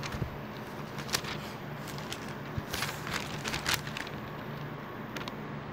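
Quiet scattered clicks and rustles of handling noise over a low steady hum.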